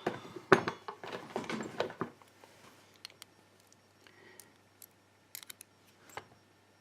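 Small metal clicks and rattles of a pin tumbler lock being taken apart by hand: a quick flurry of clicks for about two seconds, then a few single sharp clicks spaced out.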